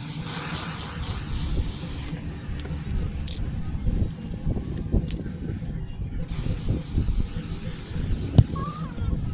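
Hissing spray of pressurised air or sealant, in two long bursts: one for about the first two seconds and another for nearly three seconds near the end. Short knocks and handling clatter fall between them, the sharpest just before the second hiss ends.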